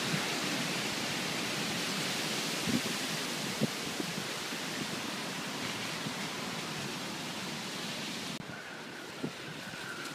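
Steady rushing of storm wind and rain, with a few faint knocks; the hiss drops off about eight seconds in.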